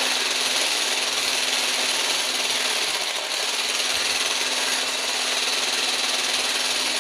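Handheld electric whisk running steadily in a glass bowl, beating egg and coconut oil into homemade mayonnaise as it emulsifies. Its hum dips briefly about three seconds in.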